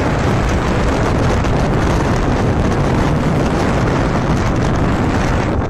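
Steady wind rush on the microphone of a moving motorcycle, mixed with its engine and road noise.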